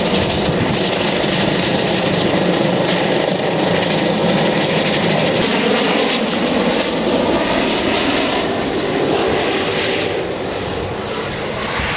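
Air ambulance helicopter flying away after takeoff: steady rotor and turbine noise that fades somewhat over the last couple of seconds as it draws off.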